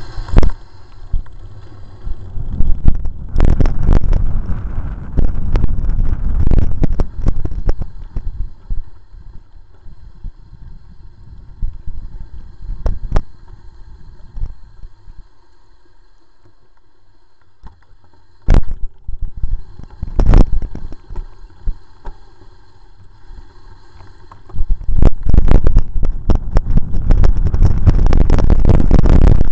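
Mountain bike riding a rough dirt trail, heard through the action camera's microphone: a low rumble of wind and trail vibration with rattling and sharp knocks from bumps. It eases to a quieter stretch in the middle with a few single knocks, then turns loud and rough again for the last few seconds.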